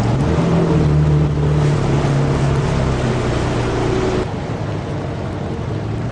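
Ski boat's engine running under way, with wind and water rushing past the boat. The engine note drops back about four seconds in.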